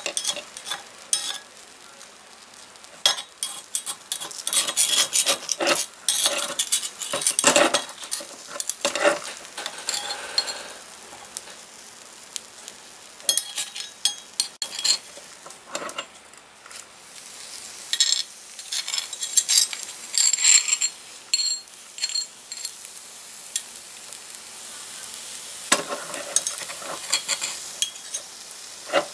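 Small metal spatula scraping and tapping in clusters around the edge of a crepe in a miniature cast-iron skillet, loosening and lifting it, over a faint sizzle of the batter cooking.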